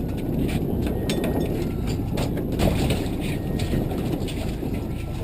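Boat motor running steadily at trolling speed, with a low hum and rush of wind and water.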